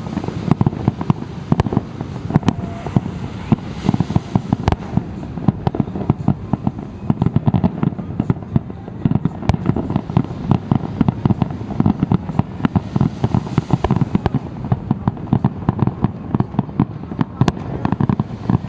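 Aerial fireworks exploding in rapid, continuous succession: many sharp bangs and pops a second, overlapping into a steady rumbling crackle.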